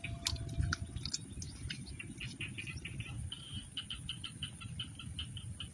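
A night animal calling a rapid series of short, high chirps, about five a second, starting about two seconds in. Behind it are a steady high insect hum, a low rumble and a few sharp clicks in the first second.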